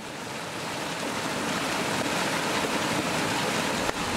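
Water gushing out of a corrugated metal culvert pipe into a creek: a steady rushing that fades in over about the first second.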